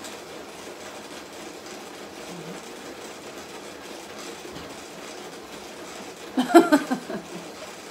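A steady, even background hum, with a short burst of a person's voice about six and a half seconds in.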